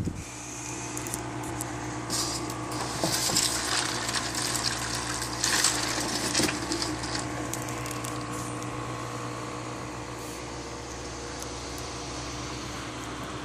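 Electric fan with a water-cooling system running: a steady motor hum, with water splashing and trickling in irregular bursts over the first half.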